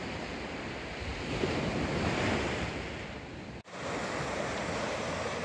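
Small waves breaking and washing up a sandy beach, with wind on the microphone; the surf swells and eases, cuts out for an instant about three and a half seconds in, then goes on.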